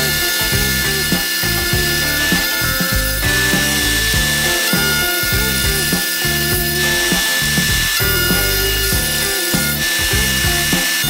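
Table-mounted router running with a steady high whine while it mills a rabbet into the edge of an 8 mm poplar plywood drawer part, over background music.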